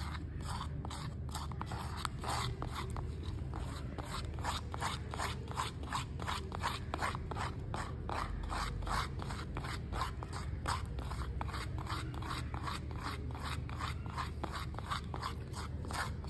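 Spatula scraping around the wall of a rubber mixing bowl, stirring soft dental plaster (Type II gypsum) and water into a smooth creamy mix. Even, rhythmic scraping strokes, about three a second.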